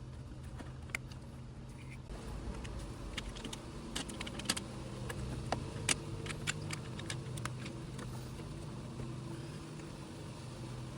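Scattered light clicks and taps of hand tools and parts being handled, busiest in the middle, over a steady low hum.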